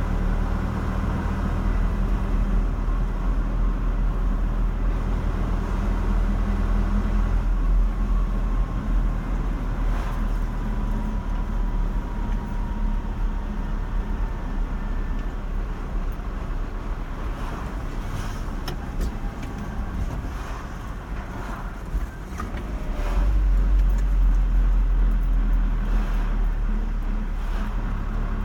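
Car being driven on a road: a steady low rumble of engine and tyres. It eases off about seven seconds in and grows louder again about 23 seconds in, with a few faint clicks midway.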